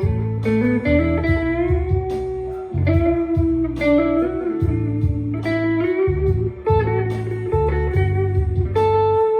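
Electric guitar played through a Belcat Blues Drive overdrive pedal: a blues lead line with string bends and sliding notes over a steady backing rhythm.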